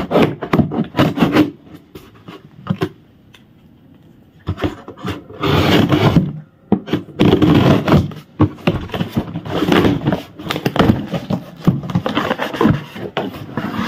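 Cardboard delivery box being opened by hand: a series of scraping, tearing and rustling noises, with a quiet pause a couple of seconds in before louder scrapes resume.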